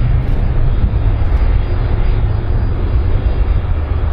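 Airbus A310 airliner's jet engines, a steady, heavy rumble with hiss above it as the jet rolls along the runway.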